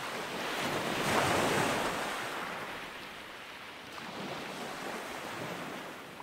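Ocean waves washing in a steady hiss that swells to its loudest about a second in, then eases off.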